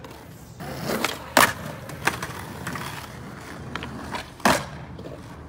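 Skateboard on rough concrete: wheels rolling, with two loud hard clacks of the board striking the ground, one about a second and a half in and another about three seconds later. A few lighter knocks and clicks come between them.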